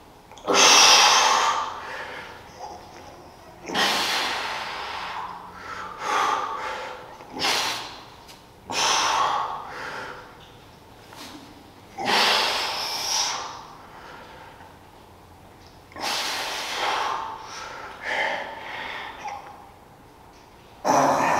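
A man breathing hard through a set of dumbbell presses: a loud, forceful exhale with each rep, about every four seconds, followed by a few shorter breaths.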